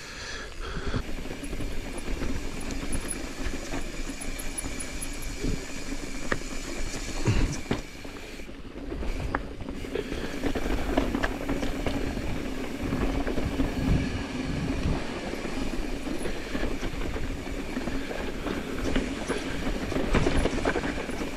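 Mountain bike riding over rough dirt and rock: steady rolling and rattling of the bike, with frequent knocks as the wheels hit bumps.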